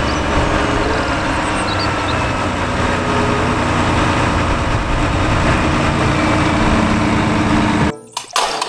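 Heavy tipper truck's diesel engine idling steadily with the dump body tipped up. The sound cuts off about eight seconds in.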